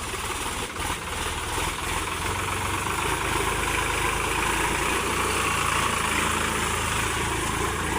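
Diesel engine of heavy machinery running steadily, growing somewhat louder over the first couple of seconds and then holding level.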